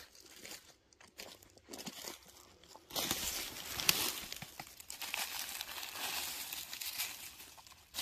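Dry fallen leaves crackling and rustling under a hand that digs through the leaf litter and pulls a porcino mushroom out of the ground. Scattered soft crackles come first, then louder continuous rustling from about three seconds in.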